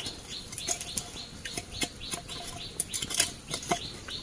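A stick pounding inside a green bamboo tube: scattered light knocks, each with a short hollow ring, grouped a little more closely around the middle. A high chirp repeats steadily in the background.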